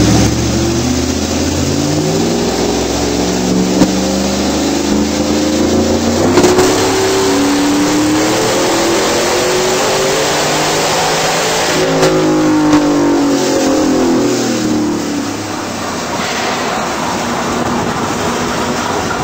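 Chevrolet Silverado's 5.3L V8 with an Edelbrock E-Force supercharger making a pull on a chassis dyno. The engine's pitch climbs steadily for about twelve seconds, then falls away as the throttle is lifted and the truck coasts down.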